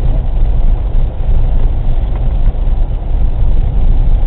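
Steady low rumble inside a Honda Fit's cabin as it drives through snow: engine and road noise with no distinct events.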